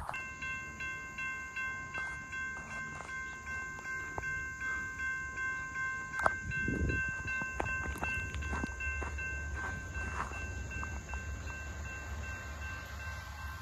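Railroad grade-crossing warning bell ringing in quick, even strokes, about three a second, signalling an approaching train. A low rumble builds underneath in the second half as the Amtrak train approaches the crossing.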